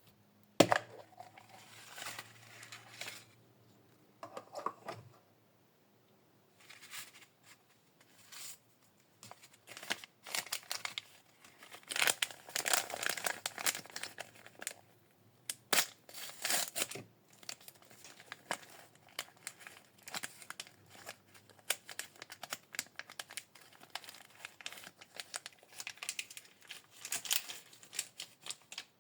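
A plastic Mini Brands capsule ball snaps open once, sharply, near the start. Then small plastic wrappers are torn and crinkled on and off as the miniatures are unwrapped.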